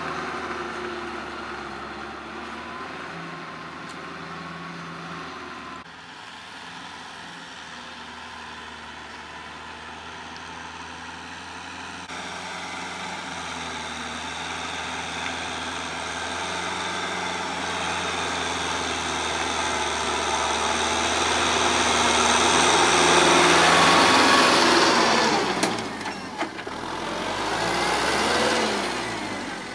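Kubota L5018 tractor's four-cylinder diesel engine running under steady load as it pulls a rotary tiller through the soil. It grows louder as the tractor comes close, then drops in pitch and level as it passes by near the end.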